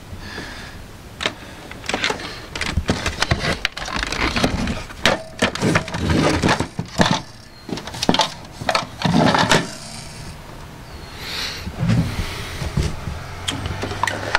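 Irregular plastic clicks, knocks and clatter of hands handling the opened casing and parts of a portable CD/cassette boombox, busiest in the first ten seconds, then quieter near the end with a low steady hum.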